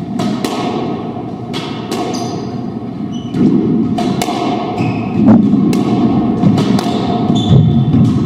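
Squash doubles rally: the ball cracks sharply off rackets and court walls about once a second, with shoes squeaking and thudding on the hardwood floor in a reverberant court.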